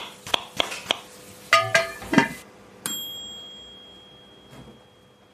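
Closing jingle: a steady ticking about three times a second, a few short pitched notes, then a single bright bell ding just before three seconds in that rings on and slowly fades.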